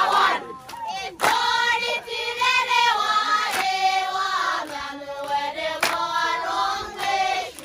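Group of voices singing together in chorus, with a sharp hit on the beat about every two seconds.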